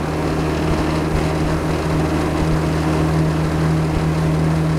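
An old outboard motor running at a steady speed: a constant hum with one strong low tone that does not change.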